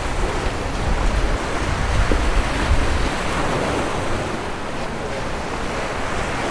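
Surf washing against the rocks of a jetty, a steady rush of breaking waves, with wind buffeting the microphone, heaviest in the first three seconds.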